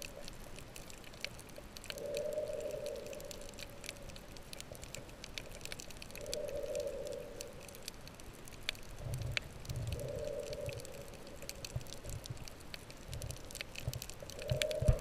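Underwater sound on a coral reef: a muffled, moaning tone that swells for about a second roughly every four seconds, over a constant scatter of crackling clicks, with a few low thumps in the second half.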